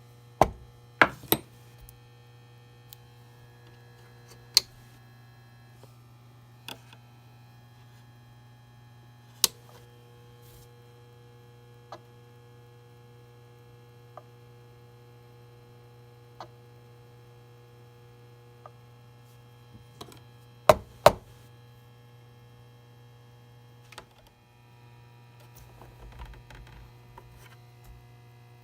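Powered-up Rodime hard drive in a Macintosh Hard Disk 20 giving sharp, irregularly spaced clicks over a steady electrical hum, its platters failing to spin up: stiction has stuck the heads to the platters.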